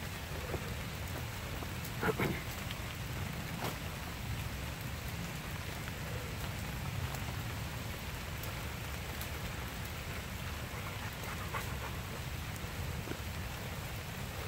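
Steady rain falling through woodland, an even hiss with scattered ticks of drops and a short, louder noise about two seconds in.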